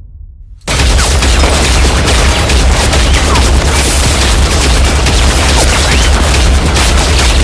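Heavy automatic gunfire in a dense, unbroken fusillade with deep booms, starting abruptly about a second in.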